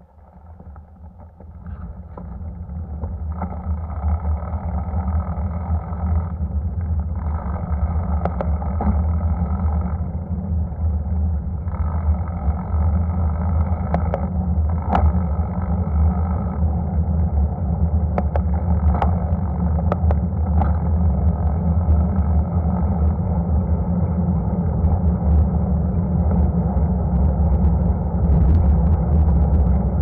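Wind buffeting the microphone of a bicycle-mounted camera as the bike rolls along the road: a steady low rumble that builds over the first few seconds, with a few sharp clicks.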